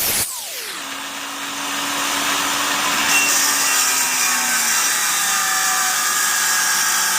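Power tool running with a loud steady hiss. Its pitch falls sharply in the first second and drops a little further about halfway through.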